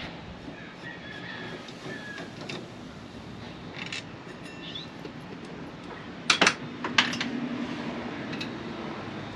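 A few sharp metallic clinks and clacks, the loudest bunched together about six to seven seconds in, from hand tools and small metal parts being handled while a truck's steering column is taken apart, over a steady background hiss.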